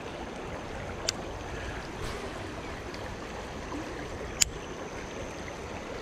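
River water running over shallow rocks, a steady rush, with two sharp clicks, one about a second in and one near the end.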